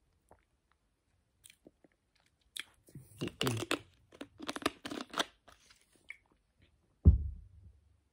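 Plastic soda bottle handled close to the microphone: about three seconds of crackling and crinkling of the plastic as the cap is twisted, then a single dull thump near the end.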